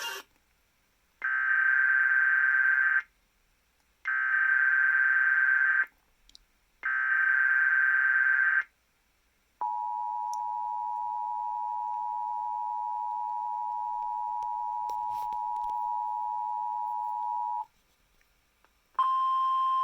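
Emergency Alert System activation: three bursts of SAME digital header data, about a second apart, then the steady two-tone EAS attention signal held for about eight seconds. Near the end a single steady weather-radio alert tone begins.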